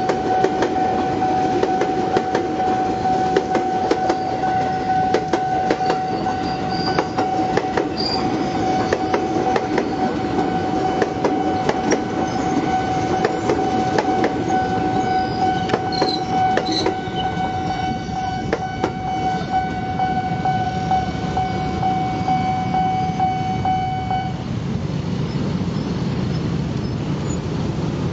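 A JR 205 series electric commuter train passes close by, its wheels clicking over the rail joints. Over it the level-crossing warning signal sounds a steady tone that cuts off about four seconds before the end. Near the end there is a low rumble of motorbike engines as traffic moves off across the tracks.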